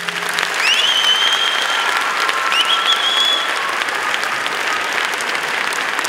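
Audience applauding at the end of a dance piece, with two high-pitched cheers ringing out over the clapping, about one second and two and a half seconds in.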